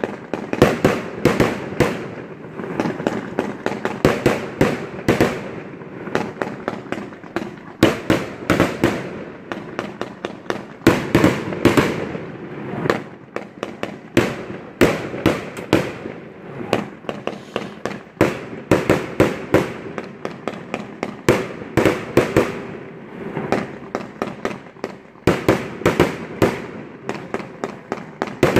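Fireworks going off in rapid succession: a dense, irregular string of sharp bangs and crackles, several a second.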